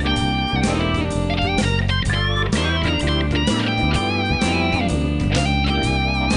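Background music with electric guitar over a steady bass line, some notes bent.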